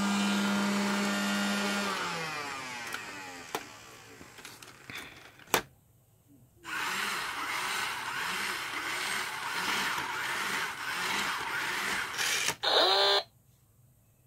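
Toy robot: a steady electronic buzzing tone dies away over the first two seconds, then after a sharp click its small motor and plastic gears whir with a slow pulse for about six seconds, ending with a short burst of electronic sound effects.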